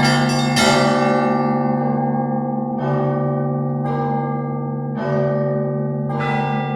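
Church bells ringing in a peal: several bells of different pitches strike in turn, about once a second after the first, over the long, steady hum of a large bell.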